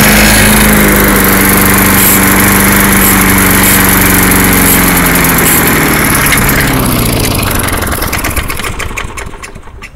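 MTD Lawn Chief's 3.75 hp Tecumseh engine running loudly, its pitch slowly sagging, then fading and dying out near the end: the engine stalling, which the owner puts down to dirt in the line to the carburetor.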